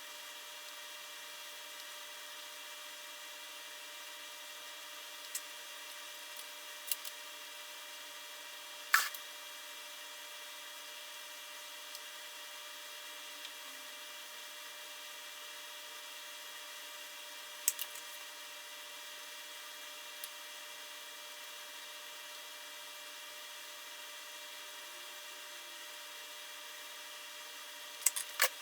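Sporadic sharp clicks and taps of small tools and parts handled at a soldering bench, the loudest about nine seconds in and a quick cluster near the end, over a faint steady hiss with a few thin steady tones.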